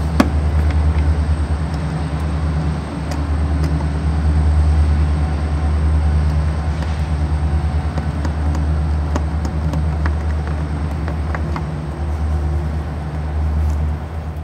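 A steady low drone like a running engine nearby, with scattered light clicks and taps as the generator's plastic side cover is fitted and screwed back on.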